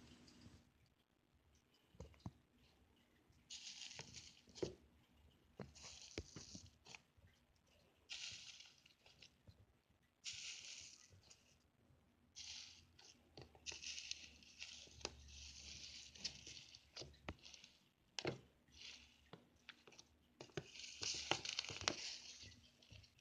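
Slime being squished and stretched by hand: repeated stretches of crackly, sticky noise, each a second or two long, with small clicks and pops in between.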